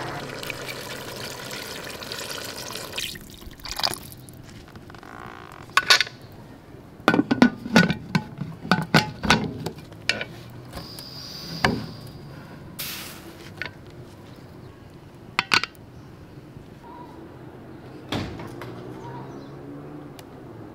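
Water poured from a glass jug into a pressure cooker, followed a few seconds later by a run of sharp metal clinks and knocks as the cooker's lid is fitted and closed.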